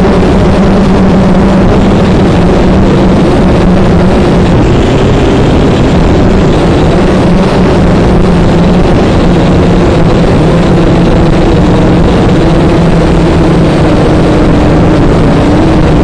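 Small RC quadcopter's electric motors and propellers buzzing loudly in flight, heard close up from on board, with a steady pitch that shifts a little near the end.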